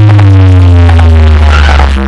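Electronic dance music played very loud through a large stacked DJ speaker tower, with a heavy sustained bass note and a synth tone sliding slowly downward in pitch.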